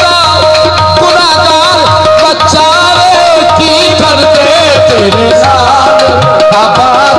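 Live qawwali music: tabla and held harmonium notes, with a wavering sung melody over them, played loud.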